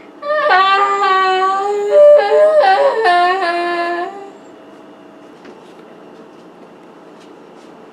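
A person screaming in long, wavering cries that rise and fall in pitch for about four seconds, loudest a little after two seconds in. The screaming stops abruptly and leaves only a faint steady hum.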